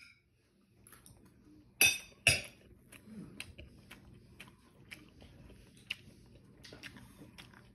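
Cutlery clinking against a dish during a meal: two sharp clinks about two seconds in, then lighter scattered clicks and clinks.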